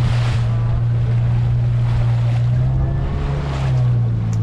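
Motorboat engine running steadily with a low drone that shifts slightly in pitch about three and a half seconds in, over water rushing and splashing against the hull on a choppy sea.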